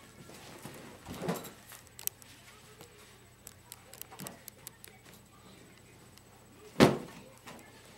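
Two people wrestling and scuffling on a carpeted floor, with scattered small knocks and one loud thump about seven seconds in.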